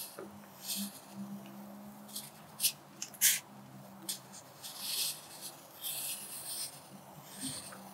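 Graphite pencil scratching on paper in short, separate strokes as cursive letters are written, with a couple of sharper, briefer strokes about halfway through.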